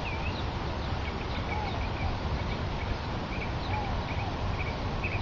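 Birds calling: scattered short high chirps and a lower arching call repeated about every couple of seconds, over a steady low background rumble.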